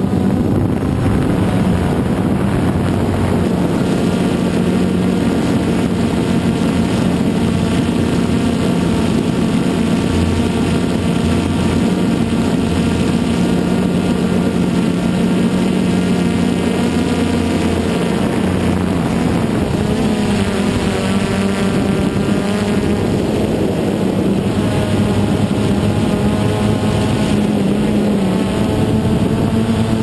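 DJI Phantom 2 quadcopter's electric motors and propellers buzzing steadily, heard from its own onboard camera. The pitch wavers a couple of times, near two-thirds of the way through and again near the end, as the motors change speed.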